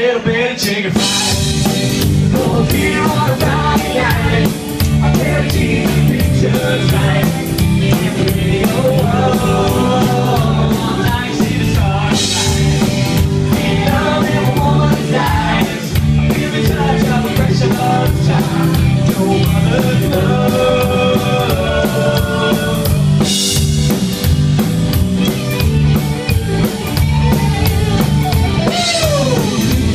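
Live band playing a country song: a singer with a backing band, drum kit keeping a steady beat.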